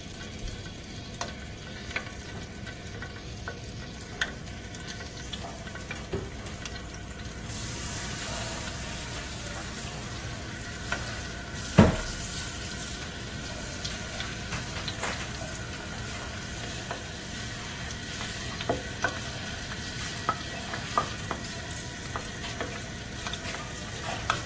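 Hot frying oil sizzling and crackling in a pan, with scattered small pops. The sizzle grows louder about seven seconds in, and there is one sharp knock about twelve seconds in.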